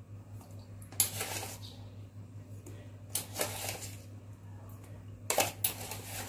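A metal spoon scooping salt and dropping it into a glass bowl of water to make pickling brine: short clinks and scrapes in three bunches about two seconds apart.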